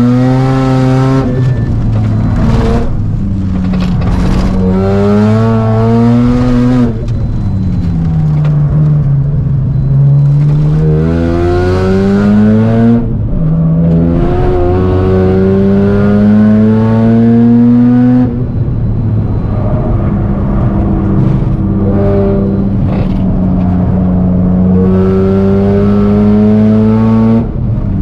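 Mazda RX-7 FD3S's single-turbo 13B twin-rotor engine driven hard, its pitch climbing as it pulls through the gears and dropping several times at each shift or lift-off.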